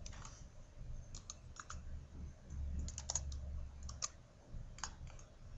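Computer keyboard being typed on: a dozen or so light, irregular key clicks over a low hum.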